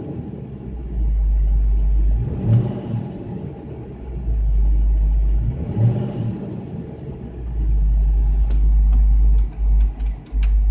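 A deep hum from the car's subwoofer, caused by the unplugged right subwoofer RCA output on the head unit, fades out each time the engine is revved (twice, at about 2.5 and 6 seconds in) and comes back as the engine settles. Near the end the hum cuts in and out a few times, with light clicks.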